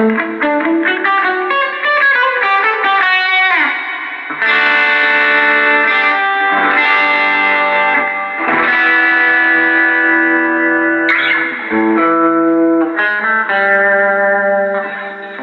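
Electric guitar played through an Orange Crush 35 combo amp fitted with a new Jensen MOD10-50 10-inch speaker, lightly distorted: a quick run of single notes, then several chords let ring for a second or two each, testing the newly installed speaker.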